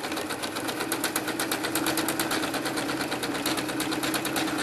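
Electric sewing machine stitching a seam: a rapid, even clatter of needle strokes over the steady hum of its motor.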